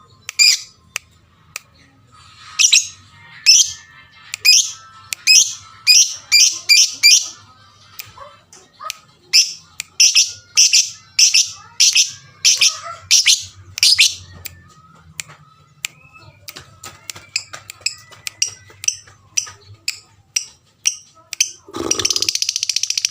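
Lovebird chirping: a long run of loud, sharp, high calls about one every half second, then fainter and quicker chirps. This is a lure call meant to set other lovebirds calling. Near the end a steady hiss with a low hum starts suddenly.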